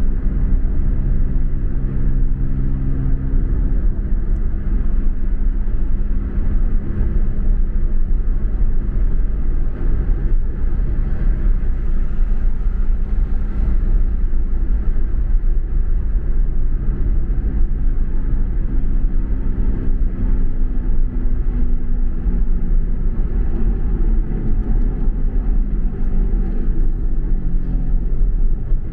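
Steady low rumble of a car cruising on a highway, heard from inside the cabin: engine and tyre noise, with a humming engine note that is strongest in the first few seconds.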